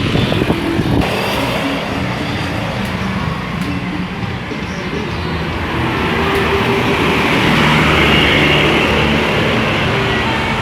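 Buses driving past: engine running and road noise, growing louder about six seconds in.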